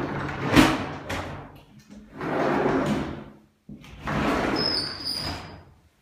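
Amado storm-shutter panels being slid along their track, three long sliding runs one after another, with a sharp knock about half a second in.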